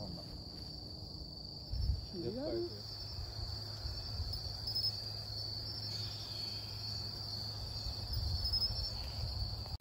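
Insects trilling in a steady, high-pitched, unbroken chorus in evening grass, with a low rumble underneath. A voice is heard briefly about two seconds in.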